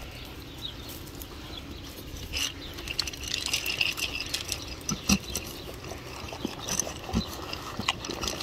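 Sheep crowding in to a bowl of feed pellets: scattered light clicks and rustles, with a couple of brief soft thumps, from hooves shuffling on dry, straw-littered ground and muzzles at the bowl.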